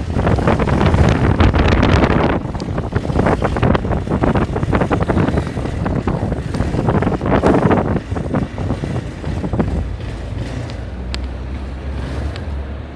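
Wind buffeting the microphone while riding a moving vehicle, over a low engine rumble. The buffeting eases near the end, leaving a steadier low hum.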